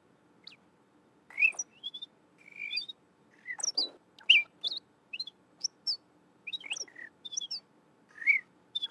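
Artificial birdsong made from human whistles that were sped up and high-pass filtered, played back as a randomized layered ambience. Short chirps and quick pitch glides come at irregular intervals, sometimes overlapping.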